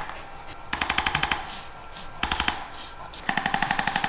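Handheld percussive chiropractic adjusting instrument firing rapid thrusts into a dog's back, about a dozen a second. It comes in three bursts: a short one under a second in, a brief one just past two seconds, and a longer run starting about three seconds in.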